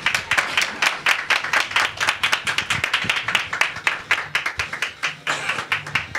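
A small room's audience applauding: many hands clapping in a quick, uneven patter that stops abruptly.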